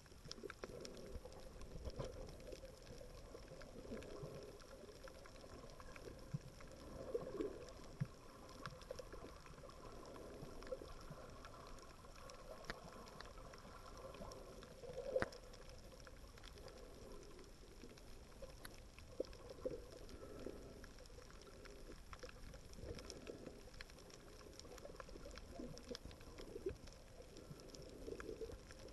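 Faint, muffled underwater sound of moving water and gurgling, with scattered small clicks and a louder knock about halfway through.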